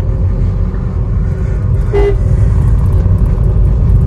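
Cabin noise of a Tata Altroz hatchback on the move: a steady low rumble of its turbo-diesel engine mixed with road noise, which is plainly noticeable inside the car. A short horn toot sounds about halfway through.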